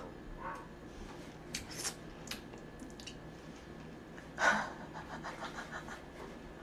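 Faint cracks and clicks of cooked lobster shell being pulled apart by hand, with one louder breath about four and a half seconds in.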